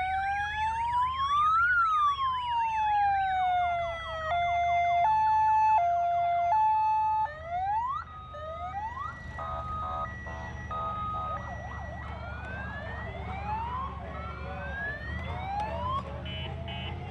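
Electronic sirens of police and emergency vehicles sounding together. The loudest, from the police pickup passing close by, changes from a slow rising and falling wail to a two-tone hi-lo and then quick yelps. After that, fainter sirens from the vehicles behind overlap over a low engine rumble, and a rapid electronic beeping comes in near the end.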